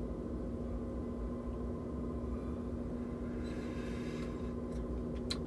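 Steady low hum with a soft breathy hiss lasting under a second, about three and a half seconds in, and a faint click near the end.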